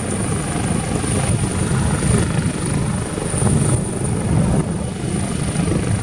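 Small toy helicopter in flight, its rotor blades whirring steadily with a thin high motor whine.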